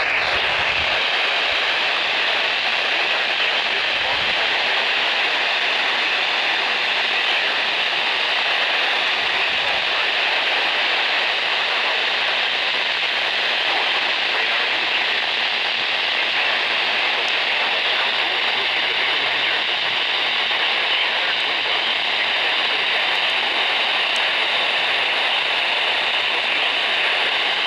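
Steady hiss of radio static, an even band-limited rush of noise from a radio receiver with no tone or signal standing out.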